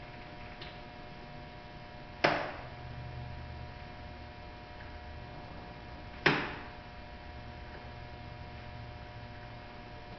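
Two sharp clicks about four seconds apart, each dying away briefly, as a small hand tool works at the car's rear quarter-panel trim, over a steady electrical hum.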